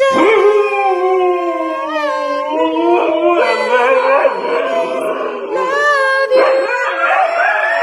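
Siberian husky howling in long, wavering drawn-out notes, 'singing' along on cue, with a second voice holding a steadier note at the same time.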